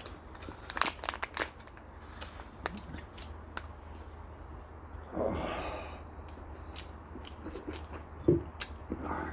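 Crunchy snack food being chewed, with crinkling of a foil snack bag and scattered small clicks. There is a short, louder thump about eight seconds in.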